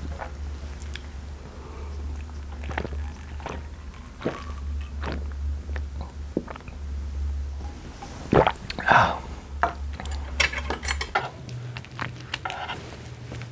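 Close-miked eating: chewing and mouth sounds with scattered small clicks, as of a spoon or chopsticks against a bowl. A steady low hum runs underneath and shifts a little higher about eleven seconds in.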